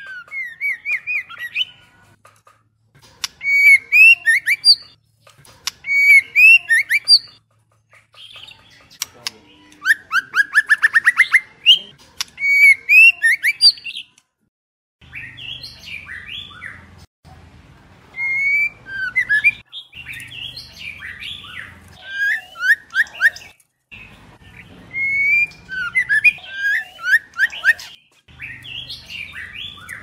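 White-rumped shama, the female of the species, singing and calling: short phrases of quick whistled and chirping notes every second or two, with a fast run of repeated rising notes about ten seconds in.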